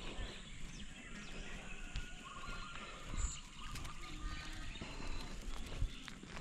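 Outdoor rural ambience heard while walking: irregular low thumps of footsteps and camera movement, with a few short, thin bird calls over a steady background hiss.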